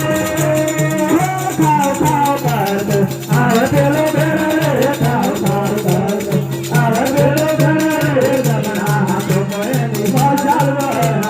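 Devotional music with rattling shaker-type percussion over a repeating low two-note bass figure, and a wavering melody line that bends in pitch.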